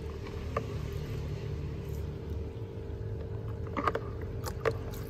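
A few light splashes and knocks near the end as a small aquarium net is swept through water in a plastic bucket, over a steady low background hum.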